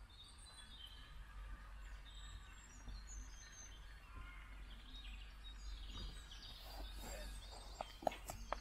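Outdoor ambience of birds chirping and singing, over a steady low rumble. A couple of sharp knocks near the end.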